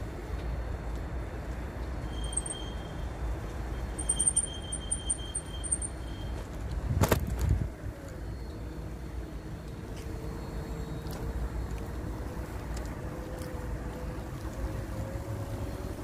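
Wind rumbling on the microphone with road noise during a bicycle ride. A brief run of high, evenly repeated chirping tones comes a few seconds in, and a short loud rush about seven seconds in. A faint hum slowly rises in pitch through the second half.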